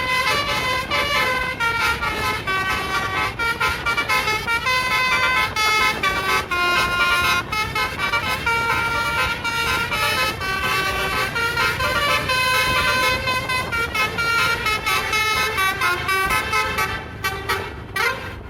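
Basuri telolet bus horn playing a long, fast tune of many short changing notes. It dies away near the end.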